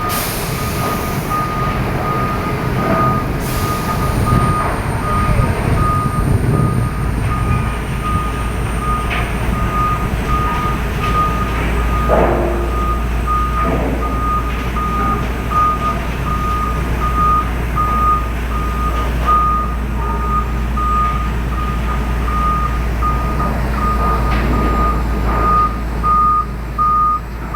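A heavy vehicle's reversing alarm beeping steadily at an even pace while the vehicle backs up, over the low rumble of its diesel engine.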